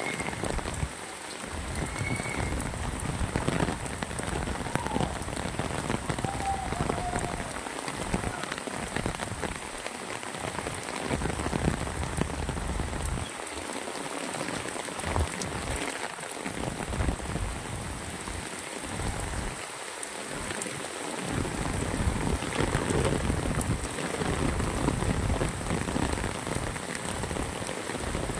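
Heavy rain falling steadily on wet red-stone paving and tree leaves.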